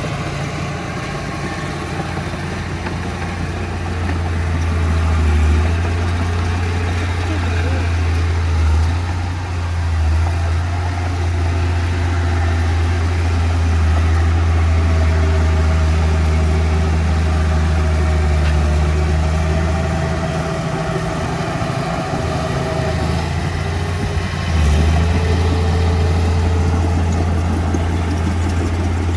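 Diesel engine of heavy earthmoving machinery running steadily, its deep drone swelling and easing several times under changing load and stepping up again near the end.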